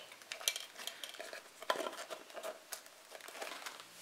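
Faint rustling and scattered light clicks of a clear plastic display case and a small cardboard box being handled.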